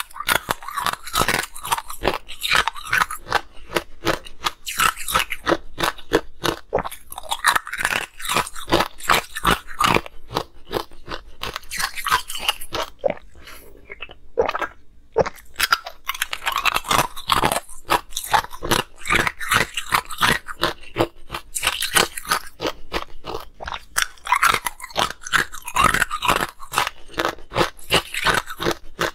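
Hard ice being bitten and chewed right at a close microphone: dense, rapid crunching and cracking. It eases off briefly about halfway, then resumes.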